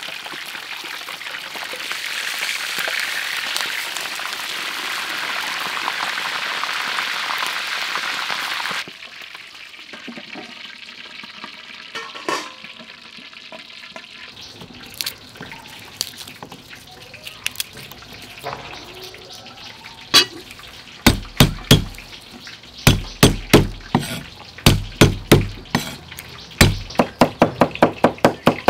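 Pork leg deep-frying in a wok of hot oil, a loud even sizzle that cuts off about nine seconds in. After a quieter spell with a few scattered clicks, a cleaver chops on a wooden board in quick runs of strokes near the end.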